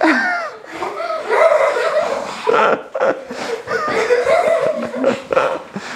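Several children giggling and laughing together, in short, high, overlapping bursts.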